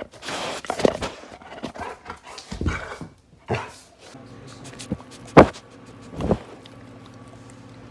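Golden Retriever puppy right at the phone's microphone, her fur and muzzle brushing and bumping it, giving irregular rustles and knocks. Two sharp loud sounds come about a second apart past the middle, the first the loudest.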